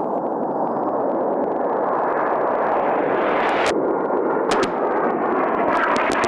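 A-10 Warthog's twin TF34 turbofan engines: a steady rushing jet noise that grows slowly louder and brighter, with a few sharp crackles in the second half.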